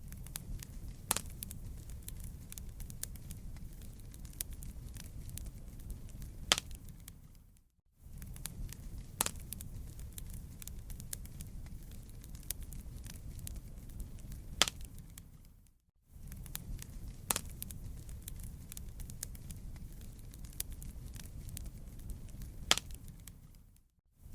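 Campfire wood burning and crackling: scattered sharp pops and snaps over a steady low rumble. The sound fades out to a brief silence and comes back about every eight seconds.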